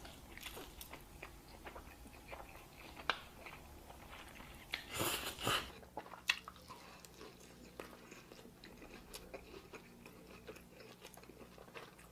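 Close-miked eating: a person biting and chewing food with many small wet clicks and smacks, and a louder crunching bite about five seconds in.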